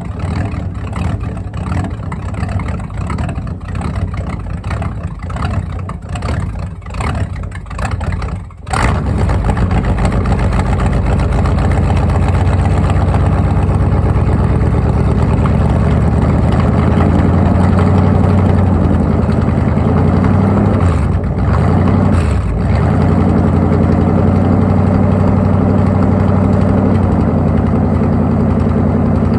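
Cold Ford 302 V8 pickup engine running through its exhaust, unevenly at first while it is not yet warm. About eight seconds in it sags almost to a stall, then picks up to a louder, steadier run, with two brief dips a little past twenty seconds.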